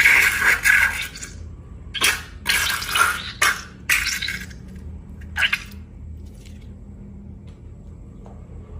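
Slime-making sounds: a scraping sound that stops about a second in, then several short wet liquid sounds between about two and five and a half seconds, then quieter.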